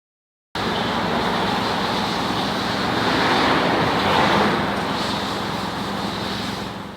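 A car running: a steady engine hum under a broad rush of road or wind noise. It cuts in suddenly about half a second in and fades out near the end.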